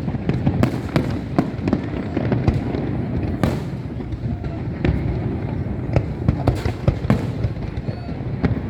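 Aerial fireworks going off in quick, irregular succession: a steady deep rumble of booming shells with sharp bangs and crackles on top.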